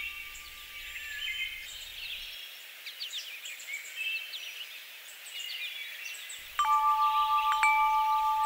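Birds chirping and singing in many short, quick calls. About two-thirds of the way in, a steady two-note ringing tone starts suddenly and holds, the loudest sound by far.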